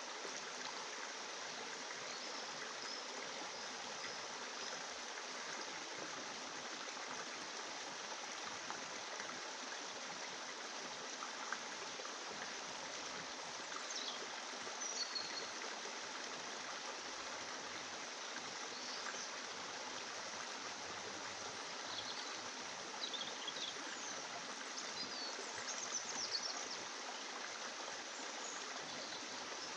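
Steady rushing noise like running water, with a few faint short high chirps in the second half.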